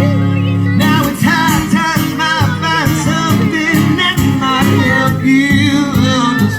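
Live music: a singer with an acoustic guitar. A held chord rings at first, then the voice comes in about a second in over steady strumming.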